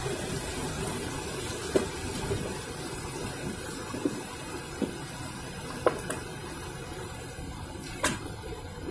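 Forest river flowing over rocks: a steady rush of water, with a few short sharp knocks scattered through it.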